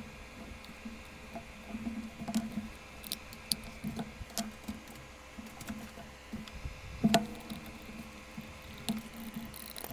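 Handling noise from unboxing a gaming mouse: scattered soft taps and clicks, with a sharper click about seven seconds in.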